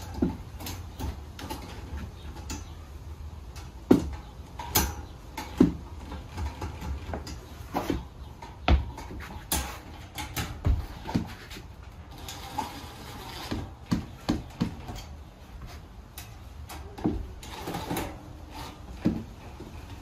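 Irregular clinks, clicks and knocks of metal fire-pit parts being handled and screwed together, with a few louder clanks scattered through.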